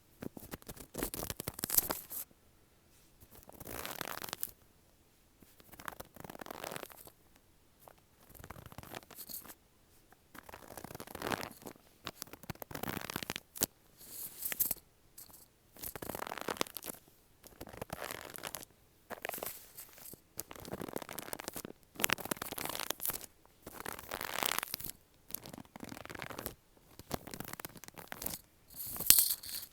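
Footsteps crunching in snow, slow and uneven, one step every one to two seconds.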